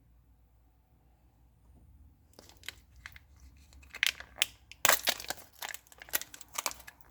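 Crinkly protective paper being handled and peeled off a replacement phone screen part. After about two seconds of quiet, a run of sharp, irregular crackles begins and grows louder.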